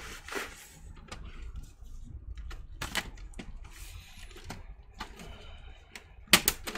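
Plastic laptop case being handled on a bench: scattered clicks and taps, then a quick run of sharp clicks near the end.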